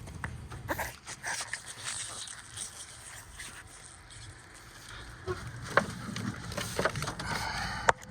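Scattered light clicks and scrapes of hand tools and engine parts being handled while a spark plug is torqued down, with a couple of sharper clicks near the end.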